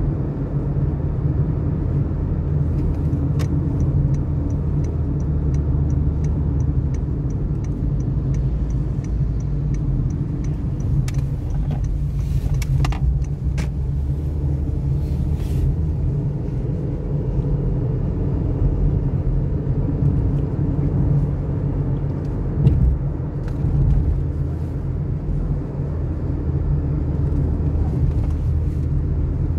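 Honda City sedan heard from inside the cabin while driving: a steady low rumble of its four-cylinder engine mixed with tyre and road noise. A fast, light ticking of about three a second runs from about four to eleven seconds in.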